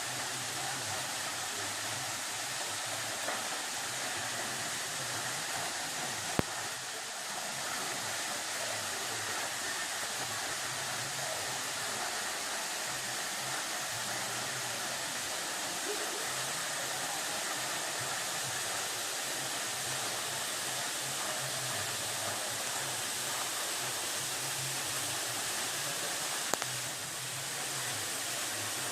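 Waterfall rushing with a steady, even hiss of falling water, broken by two brief clicks.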